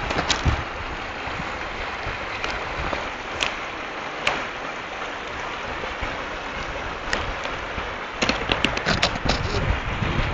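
Shallow river running over stones, a steady rush of water, with a few sharp clicks and low wind buffeting on the microphone in the last couple of seconds.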